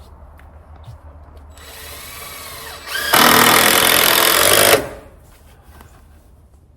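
A power tool running: a quieter run with its pitch gliding down and back up about two seconds in, then a loud run of about a second and a half that cuts off sharply.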